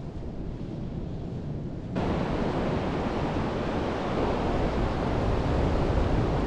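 Ocean surf washing on a beach, with wind rumbling on the microphone. About two seconds in, the surf jumps suddenly louder and brighter and stays that way.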